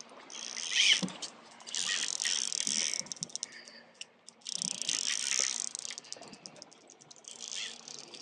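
Fly reel drag buzzing and clicking in bursts of about a second as a hooked fish pulls line off the reel, four runs with short pauses between them.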